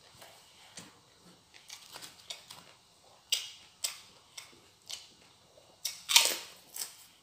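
Close-up eating sounds from a man eating rice and fried fish by hand: a string of short mouth clicks and smacks, with a louder, longer smack a little after six seconds as a handful of rice goes into his mouth.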